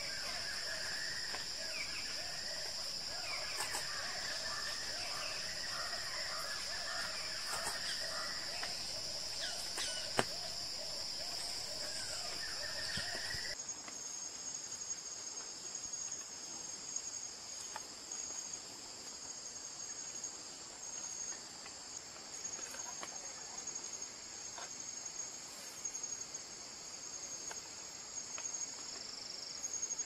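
A steady, high-pitched insect chorus in tropical forest, with lower repeated animal calls over it in the first half. About halfway through, the background changes abruptly to a thinner, steady high insect tone.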